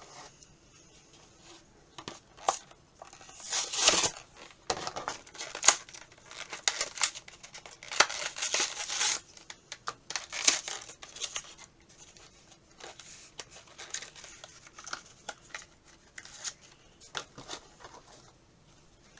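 An action figure's packaging being opened by hand: plastic and tape crinkling and tearing, with scattered clicks, in irregular bursts that are busiest in the first half.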